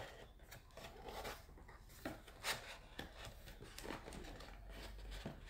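Cardboard packaging rubbing and scraping as a boxed iPhone is slid out of its cardboard shipping box: faint handling noise with a few short scrapes and taps.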